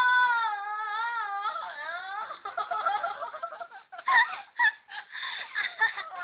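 A girl singing unaccompanied in a high voice, opening on a long held note that wavers up and down, then breaking into short, choppy vocal bursts in the second half.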